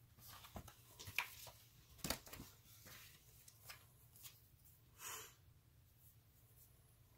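Faint handling of cardboard record sleeves and paper inserts: a few soft clicks and rustles in the first couple of seconds and one brief rustle about five seconds in, otherwise near silence.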